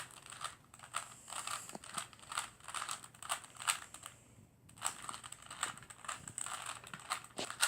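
Plastic Rubik's Cube layers being turned in quick sequence: a run of short clicks and rattles several times a second, with a brief pause about four seconds in.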